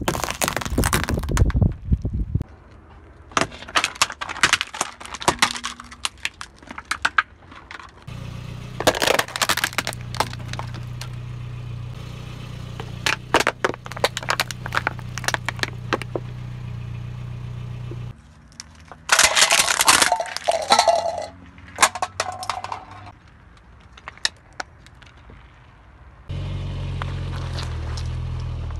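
Car tyre rolling over and crushing a run of objects, including plastic forks, an egg, a plastic bottle and soft red fruit: several bursts of sharp cracking, snapping and crunching. The car's engine runs with a low steady hum under some of the bursts.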